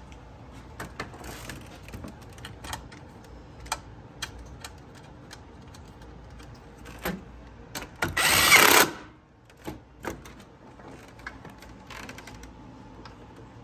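Ridgid cordless power tool run once in a short burst of just under a second, about eight seconds in, driving a bolt home at the radiator core support. Around it, scattered light clicks and clinks of metal parts being handled.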